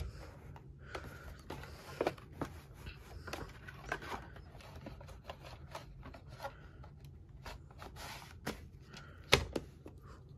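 Scattered clicks, taps and soft rustles from a plastic VHS cassette and its sleeve being handled and set down on carpet, with a sharper knock about nine seconds in.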